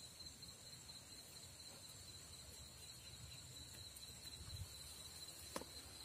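Faint, steady high-pitched trilling of insects, with a single sharp click near the end.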